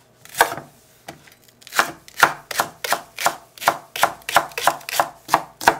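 Kitchen knife slicing a green onion (daepa) into thin rounds on a wooden cutting board. A single cut comes first, then a steady run of knife strokes against the board, about three a second.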